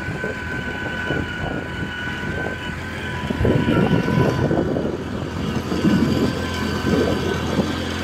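A vehicle's engine running steadily as it drives up a hill road, with a steady whine over a low hum. Wind buffets the microphone, growing stronger from about halfway through.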